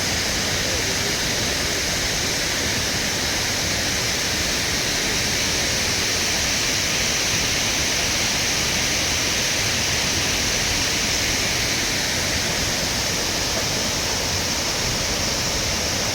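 Shiraito Falls, a wide curtain of many thin cascades, pouring down a cliff close by: a loud, steady, even rush of falling water.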